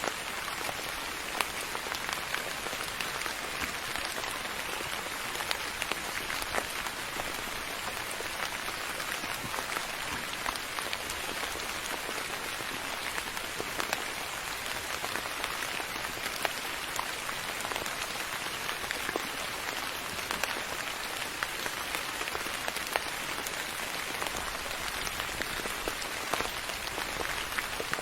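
Steady soft rain falling on a surface: an even hiss with many small drop patters.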